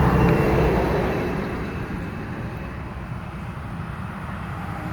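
A truck passing on the road: a steady engine rumble and tyre noise, loudest at the start and slowly fading as it moves away.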